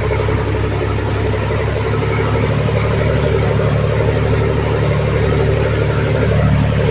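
Boat engine running steadily, a low drone that grows a little louder near the end.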